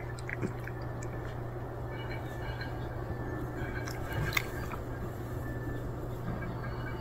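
Cat chewing dry kibble, with scattered small crunches in the first seconds, over a steady low hum. A sharp click comes about four seconds in.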